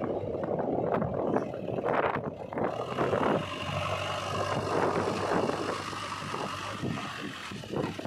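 JCB 3DX backhoe loader's diesel engine running under load as the loader arm lifts a full bucket of mud, the level swelling and easing unevenly.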